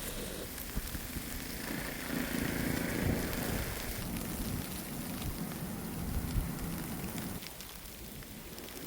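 Steady hiss of wind-driven snow in a blizzard, with a low hum swelling a couple of seconds in and a single short tap a little past six seconds.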